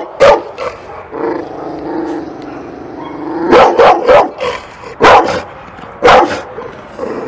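Pit bull barking: a couple of sharp barks at the start, a drawn-out pitched cry in the first half, then single loud barks about a second apart.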